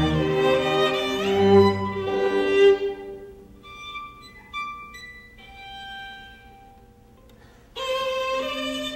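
Violin music: a bowed violin over lower accompaniment for the first few seconds, then a quieter passage of single high held notes, before the full music cuts back in suddenly near the end.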